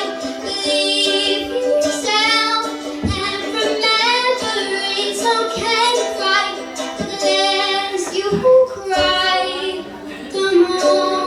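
A woman singing a song with long held notes, over sustained instrumental accompaniment.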